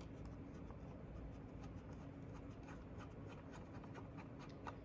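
Small screwdriver backing a small black screw out of the plastic body of a Polaroid OneStep 2 camera: faint, scattered ticks and scratches of the blade in the screw head.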